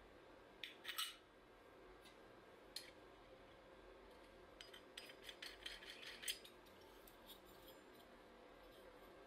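Faint metallic clicks and light scraping as an 85 mm steel saw blade is handled and fitted onto the shaft of a small aluminium motor mount: a couple of clicks about a second in, one near three seconds, then a quick cluster around five to six seconds, over quiet room tone.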